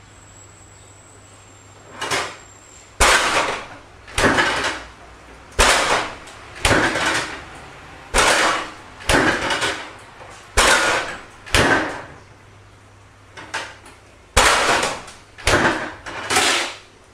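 Refrigerator door being banged open and shut over and over: a loud run of about thirteen bangs, roughly one a second with a short pause partway through, each trailing off briefly.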